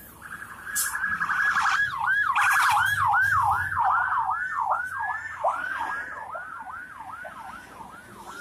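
Police car's electronic siren: a short steady tone, then a fast yelp of repeated sweeping glides, about two to three a second, quickening and growing fainter toward the end. It is the warning for traffic to pull aside and give way.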